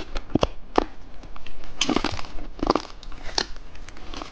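Plastic candy packaging handled close up: crinkling with several sharp plastic clicks.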